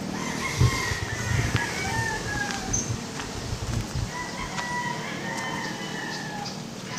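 Roosters crowing, several long crows one after another, with low thumps of footsteps on the rough ground, the loudest about half a second in.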